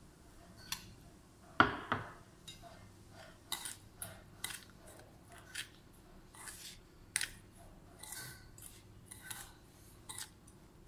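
A steel spoon knocking and scraping against stainless steel bowls as powdered sugar is tipped in and mixed, with one louder clank about a second and a half in, then short scraping strokes about twice a second.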